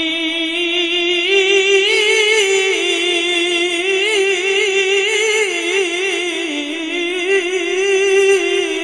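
A male qari's high, melodious voice in Qur'an recitation (tilawah), holding one long melismatic phrase through a handheld microphone. The pitch wavers in quick ornamental turns, steps up about a second and a half in, dips briefly near six seconds, climbs again and breaks off at the end.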